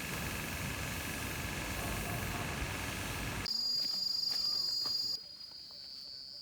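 A steady noisy hiss with two faint steady tones, then, about three and a half seconds in, a sudden cut to a steady high-pitched insect call that carries on to the end, a little quieter near the end.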